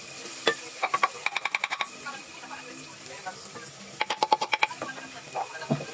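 A spoon stirring in a pot of frying food, clicking against the pot in two quick runs of rapid strokes, about ten a second, over a steady sizzle.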